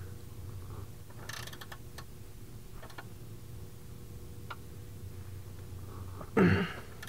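Scattered metallic clicks and clatter of hand tools and bolts while refitting a BMW E46 control arm bushing bracket: a quick run of clicks about a second in, a few single clicks, then one louder creaking clunk about six and a half seconds in.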